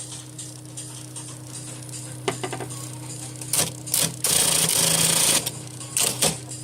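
Remington Remstar electric typewriter with its motor humming steadily. Partway through it gives a few clicks and several loud sharp mechanical strokes, and in the middle a longer mechanical rattle of about a second.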